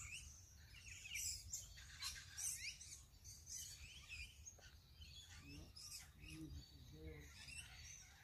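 Faint chirps and calls of several small birds, many short rising and falling notes overlapping, over a low outdoor rumble. A brief low-pitched call sounds about six seconds in.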